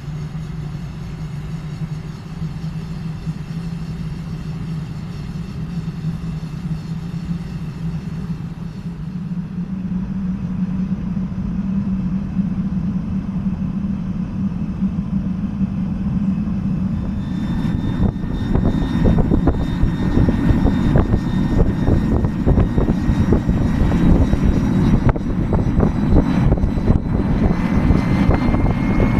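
Handmade model jet turbine with afterburner running on a test stand: a steady low rumble under a thin whine. About two-thirds of the way in it turns louder and rougher, and near the end the whine rises in pitch.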